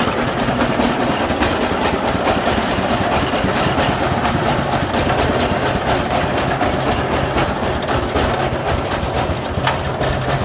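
Single-cylinder diesel engine of a homemade three-wheeled công nông running steadily.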